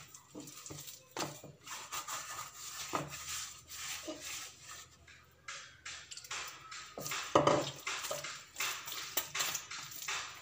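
Hands kneading soft, wet msemen dough in a clay bowl: irregular squishing and scraping, with scattered knocks against the bowl and a louder thud about seven seconds in.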